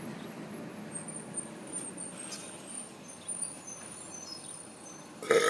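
Steady rumble of road traffic with a bus or truck going by, and small birds chirping faintly in short high notes. Right at the end a loud, drawn-out burp begins.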